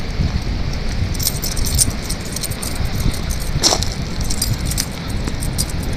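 Wind rumbling on a phone's microphone, with light metallic jingling and clicking while walking over gravel. One short falling squeak comes about halfway through.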